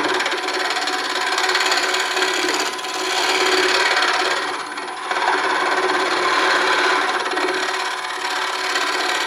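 Bowl gouge cutting a spinning, very dry elm bowl blank on a wood lathe: a steady scraping hiss of the tool taking off shavings, swelling and easing briefly with each pass. The lathe's faint steady hum runs underneath.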